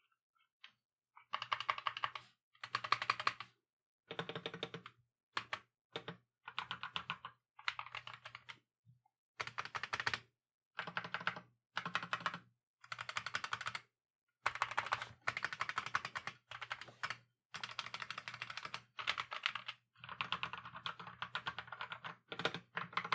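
Typing on an Akko mechanical keyboard with Cream Yellow linear switches: runs of quick key presses in short bursts, each about a second long, with brief pauses between them.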